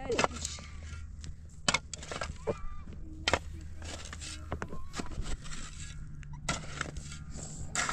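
Shovel blade chopping and scraping into hard, stony dirt: a series of irregular sharp strikes about once a second as the ground is dug.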